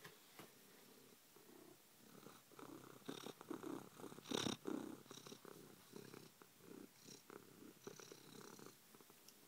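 Calico cat purring with the microphone close against its fur, with rubbing and scuffing from the phone touching the fur. The purring sets in about two seconds in and stops shortly before the end, with one louder scuff about four and a half seconds in.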